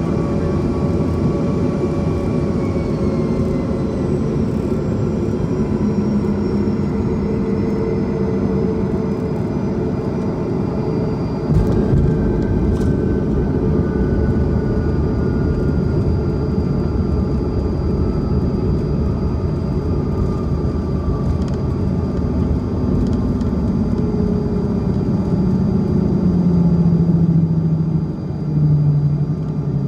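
Cabin noise inside a Bombardier CRJ-200 regional jet: steady rumble with the whine of its rear-mounted GE CF34 turbofans slowly falling in pitch, and a sudden thump about twelve seconds in.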